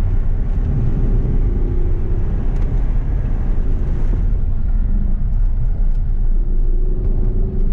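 Audi R8's V10 engine running under way, heard from inside the cabin as a steady low rumble with a droning engine note. About four seconds in, the higher part of the sound drops away.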